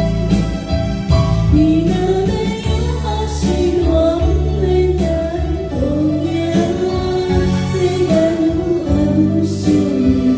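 Music: a voice singing a slow melody over a steady instrumental backing.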